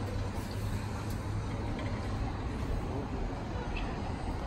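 Steady low rumble of outdoor city background, typical of distant road traffic, with faint voices of people nearby.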